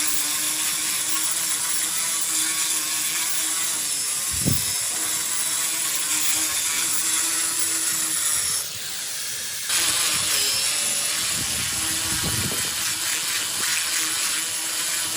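Steady machine noise, a loud hiss with a low hum under it, dropping away for about a second partway through, with two short thuds.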